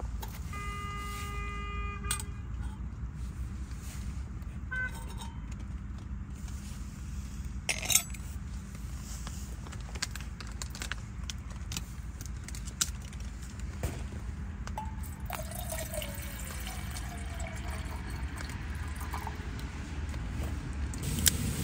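Water poured into a stainless steel camping mug set on a canister stove, with a few metal clinks (one sharp one about eight seconds in), over a steady low hum of road traffic.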